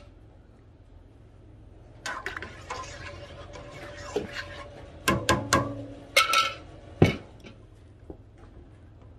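A metal stirring tool scraping and clinking against a stainless steel stockpot as lye solution is stirred into the warm oils, the first step of mixing soap. It starts about two seconds in, with several sharp ringing clinks between about five and seven seconds in.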